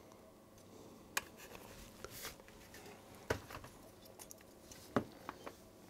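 Light clicks and taps of a RAMPS circuit board being handled while a stepper driver module is pushed onto its header pins. There is a short scrape about two seconds in and a few sharp clicks, the loudest about three and five seconds in.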